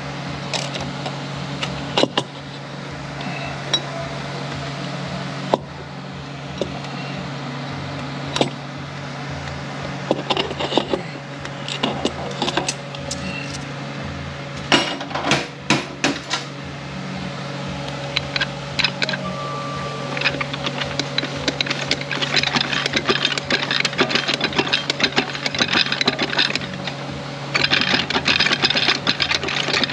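Metal parts of a 10R80 automatic transmission's gear train clinking and knocking as they are worked by hand into the case. Later there is a quick continuous rattle of steel on steel as the parts are jiggled to drop them onto the clutch splines, growing louder near the end. A steady low shop hum runs underneath.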